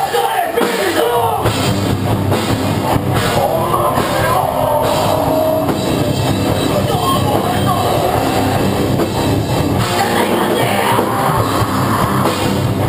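Hardcore metal band playing loud at full tilt: electric guitars, bass and drum kit.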